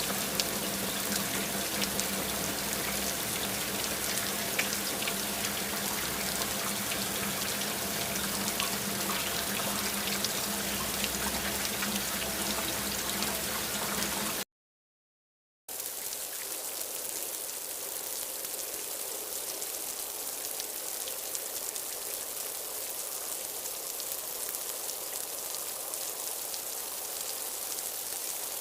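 Rain falling: a steady hiss with scattered drop ticks and a low steady hum underneath. About halfway through it cuts to silence for about a second, then comes back as a lighter, thinner rain without the low hum.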